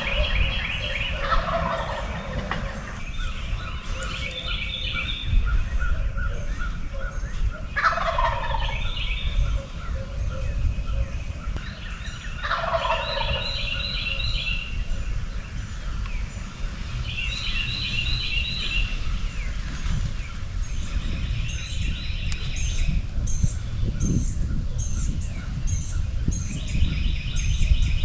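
A wild turkey gobbling three times, each gobble a rattling call that falls in pitch, about a second, eight seconds and twelve seconds in. Other birds sing repeated high chattering phrases between the gobbles, over a steady low rumble.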